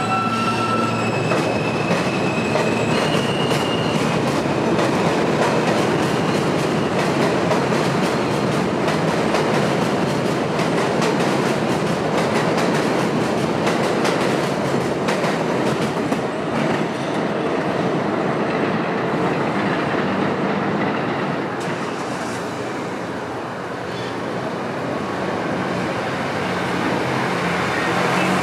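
R160 subway train accelerating: its traction motors whine in rising steps for the first few seconds. The cars then rumble and clatter over the rail joints, dying down a little past twenty seconds in and swelling again near the end.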